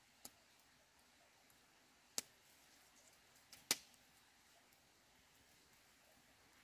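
Three sharp clicks or knocks over a near-silent background: a light one at the start, a louder one about two seconds in, and the loudest near the middle, just after a faint tick.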